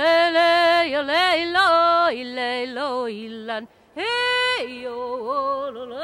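A single unaccompanied voice singing a Sami joik: long held notes with wavering ornaments that step down from a higher to a lower pitch. A short pause about four seconds in, then a new phrase starts high and drops again.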